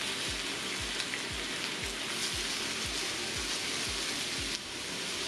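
Beef and vegetables sizzling in a small ceramic pot grill over a tabletop burner: a steady, dense crackling hiss of the food frying.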